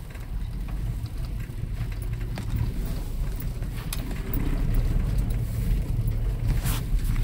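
A car driving slowly along a rough dirt track, its engine and tyres giving a low, uneven rumble. A few sharp clicks come through, one near the middle and another near the end.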